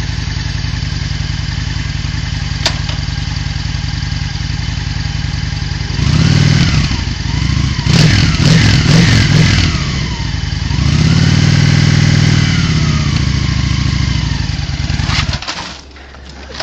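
Honda cruiser motorcycle engine idling steadily, then revved up and down several times, with one longer, steadier rise near the middle. It cuts out suddenly near the end as the novice rider stalls it pulling away.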